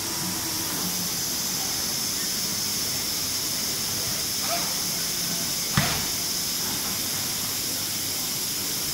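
Exhibition-hall background: a steady hiss with faint distant voices. There is a light click about four and a half seconds in and one sharp knock just before six seconds.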